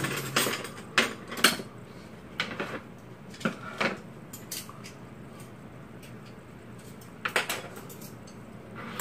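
Chopsticks, spoons and dishes clinking and tapping on a table in scattered sharp knocks, busiest in the first four seconds and again about seven seconds in.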